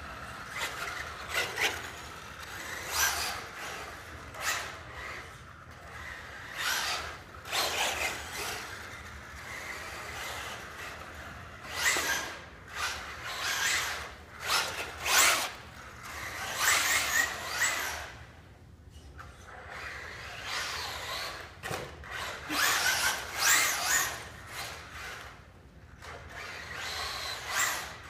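Traxxas Rustler VXL radio-controlled truck's brushless electric motor whining in repeated bursts as it accelerates and lets off, with tyres scrubbing on a hard tile floor.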